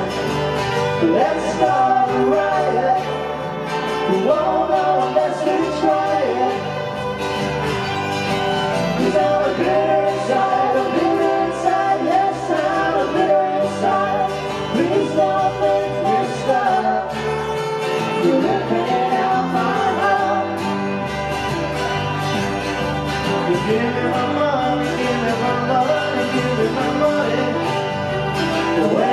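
Live band playing a song with singing, over electric guitar, acoustic guitar and bass guitar.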